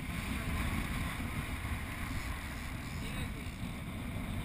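Steady rumble of wind buffeting the microphone and water rushing past an offshore sportfishing boat under way, with the drone of its Mercury outboard motors.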